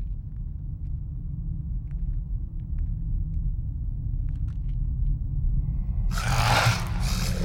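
A low, steady droning rumble, then about six seconds in a loud, harsh hiss from a vampire baring her fangs.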